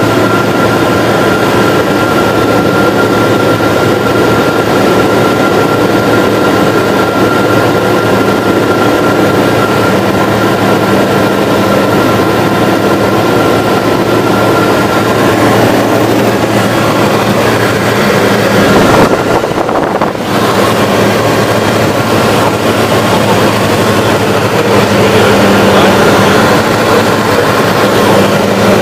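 Light propeller aircraft's engine and propeller heard from inside the cabin in flight: a loud, steady drone with a low hum, briefly dipping in the high end about two-thirds of the way through.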